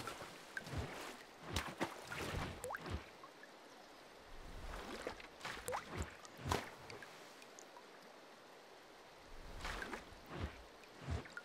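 Water sound effects: faint drips, plops and small splashes of liquid coming at irregular moments, some with a quick upward pitch glide like a drop falling into water, with a quieter lull in the second half.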